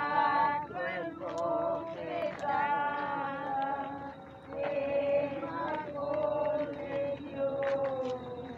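A group of voices, women's among them, singing a religious hymn together in slow, long held notes with a slight waver.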